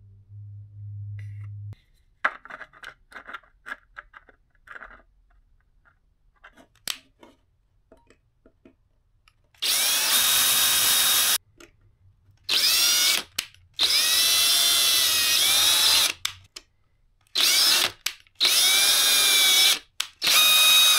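Ryobi cordless drill boring out the undersized filament alignment holes in a 3D-printed plastic part, run in about six short bursts with the motor pitch rising and falling as it spins up and slows. Light handling clicks of the plastic parts come before the first burst.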